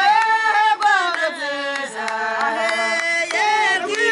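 A voice singing long, held notes that bend up and down in pitch, from a Kinyarwanda song, with a few sharp taps between the notes.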